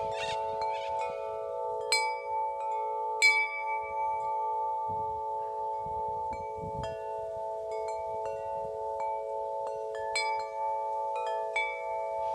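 Chimes ringing: bell-like notes struck now and then, the loudest about two and three seconds in and again near the end, over a steady drone of several held tones.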